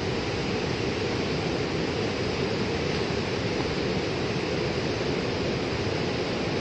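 Floodwater from a burst dam rushing past as a fast torrent: a steady, unbroken rush of water.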